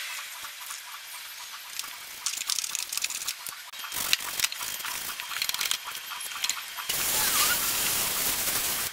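A brush scrubbing a foam-covered plastic wheel-arch liner, a scratchy hiss with quick strokes. About seven seconds in, a hose spray nozzle starts blasting water into the wheel well to rinse off the foam; this is louder and hisses steadily.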